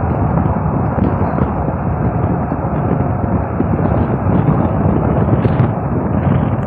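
Loud, steady rumbling noise with no clear pitch, heaviest in the low range.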